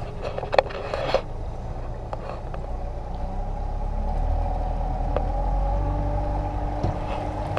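Suzuki outboard motor running as the small boat moves across the water, a steady low drone that grows gradually louder over the second half.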